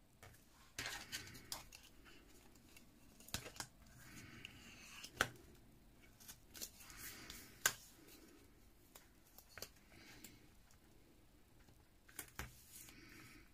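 Faint paper-craft work: scissors snipping and paper and tape being handled, with scattered sharp clicks and short rustles. The two loudest clicks come about five and about seven and a half seconds in.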